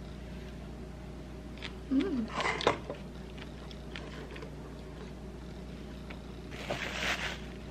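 Kitchen handling sounds while frosting a cake: a few sharp knocks and rustles of plastic wrap around two seconds in, then a short scrape near the end as whipped cream is scooped up with an offset spatula. A steady low hum runs underneath.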